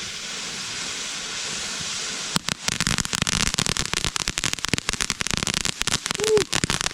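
A consumer firework hissing steadily, then about two and a half seconds in it breaks into dense, rapid crackling.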